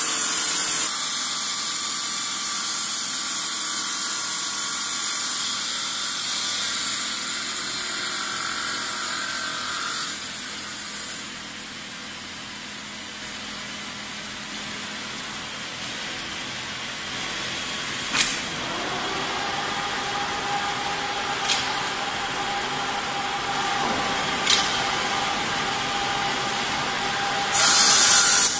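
CKDQ 500/600 bridge cutting machine running with a steady hiss that drops quieter for a while. Later three sharp clicks sound a few seconds apart, a steady whine comes in, and a loud burst of hiss starts near the end.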